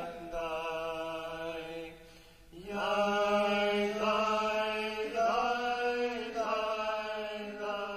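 Slow background music of long held notes over a steady low drone, the notes changing every second or so, with a brief dip just after two seconds in.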